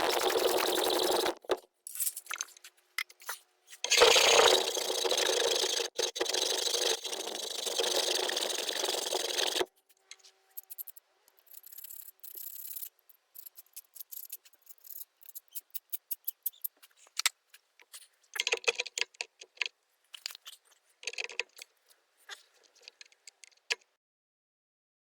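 Welding arc crackling steadily in two runs, one lasting about a second and a half at the start and one of about five and a half seconds starting around four seconds in, as the brake pins are welded. Then light scrapes, clicks and quick bursts of tapping on metal follow, with the taps coming in clusters later on.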